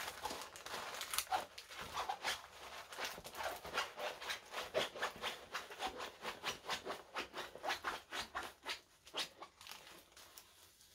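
A rolled diamond-painting canvas with its plastic film cover crackling and crinkling as it is unrolled and bent back the other way to flatten it, in a quick irregular run of crackles that dies away near the end.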